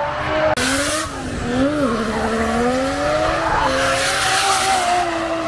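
Drift car sliding: its engine revs rise and fall as it goes, with tyres squealing and hissing, suddenly about half a second in and again around four seconds.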